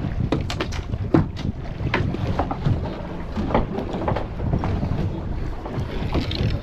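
Wind buffeting the microphone and choppy sea water slapping against the hull of a small offshore fishing boat, with many short sharp slaps and knocks scattered through it.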